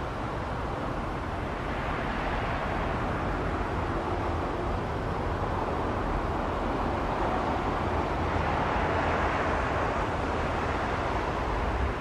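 JR Central KiHa 85 series diesel multiple unit approaching slowly, its engines and wheels on the rails running as a steady noise that grows gradually louder as it nears.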